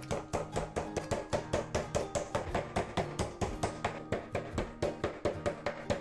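Meat mallet pounding a slice of pork loin flat through cling film on a wooden cutting board: quick, even strikes about five a second.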